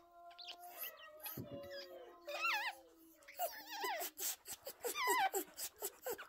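Newborn black and tan Pomeranian puppy whimpering: several short, high, wavering squeaks, with a faint steady whine early on and small clicks in the second half.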